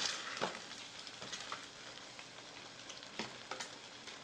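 Broth bubbling in a steel shabu-shabu pot on a portable burner, a steady hiss with a few short clicks of a utensil working in the pot.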